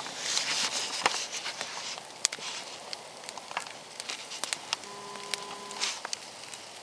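Wood campfire crackling, with irregular sharp pops and snaps throughout and a hiss over the first couple of seconds. A faint steady tone sounds for about a second, about five seconds in.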